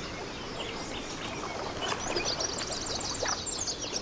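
Birds chirping: a quick run of short, high-pitched notes begins about halfway through, over a steady soft background of outdoor ambience.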